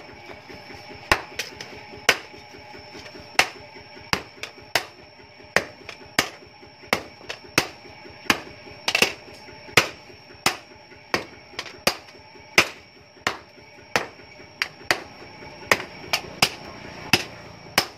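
Hammer blows on a red-hot chainsaw bar laid on a steel post anvil: the blade is being forged into a knife. The sharp metallic strikes come in a steady rhythm of roughly one to two a second, with a high ring carrying on between them.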